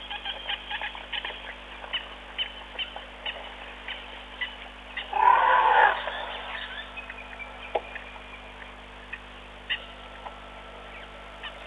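Wild birds calling with many short chirps and a few thin whistles, and one loud, harsh animal call lasting under a second about five seconds in.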